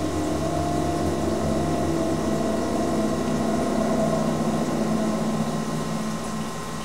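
A low, steady drone of several held tones, groaning and mechanical, that swells and then eases off near the end: the kind of mysterious 'strange sound' heard from the sky in the viral recordings.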